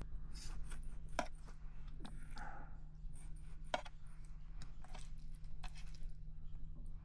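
Irregular sharp clicks and light knocks of a knife working raw sheep lungs and heart, over a steady low hum.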